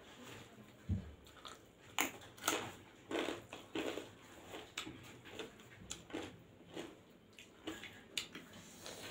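Close-up eating sounds of two people eating rice and dal by hand: chewing and wet mouth sounds, with short sharp clicks at irregular intervals as fingers mix rice on steel plates. A dull thump about a second in.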